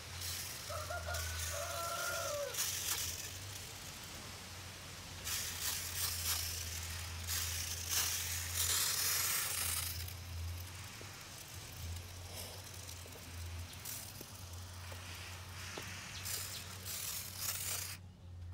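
Water hissing from a brass hose spray nozzle as a fine mist falls on a potted seedling's leaves and soil. The spray comes in several louder spells and stops suddenly just before the end, over a steady low hum.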